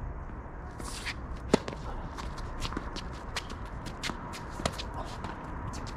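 Tennis rally: a loud racket strike on the ball about a second and a half in and a softer one about three seconds later, with tennis shoes scuffing and shuffling on the court between them.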